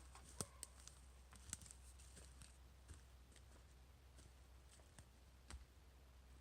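Near silence with a few faint, irregular clicks and ticks, the sharpest about half a second and a second and a half in, and another near the end.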